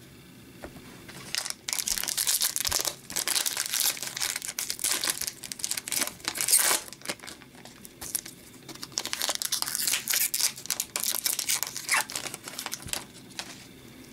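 Plastic wrapper of an Upper Deck Series 2 hockey card pack crinkling and tearing as it is opened by hand, in irregular bursts of crackle. The crackle starts about a second and a half in and stops shortly before the end.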